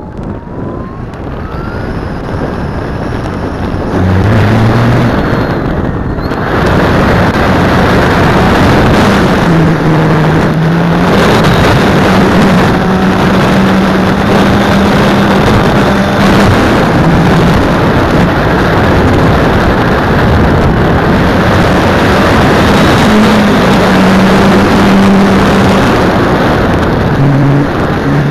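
Model aircraft motor and propeller running in flight, heard close up from an onboard camera over a heavy rush of air noise. Quieter at first with a faint rising whine, then the throttle opens about four seconds in and the note steps up and down with throttle changes.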